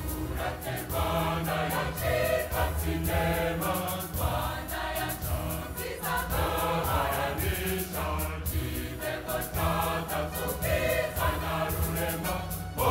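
Music: a group of voices singing a song together over a steady bass line, with a regular beat.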